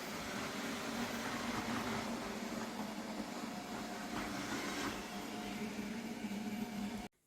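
Roborock S8 Pro Ultra robot vacuum running, a steady motor and fan whir that cuts off suddenly about seven seconds in.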